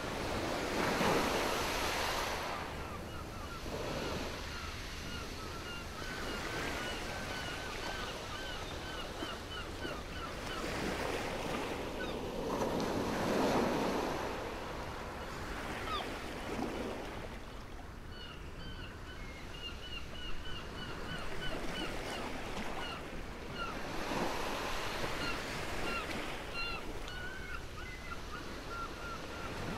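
Small waves washing onto a stony shore, swelling and falling every few seconds. Runs of short high chirps repeat in the background.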